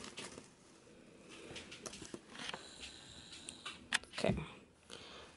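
Faint handling sounds: small clicks and rustles of fingers working a small plastic toy figure among shredded Easter grass. A soft, louder bump comes about four seconds in.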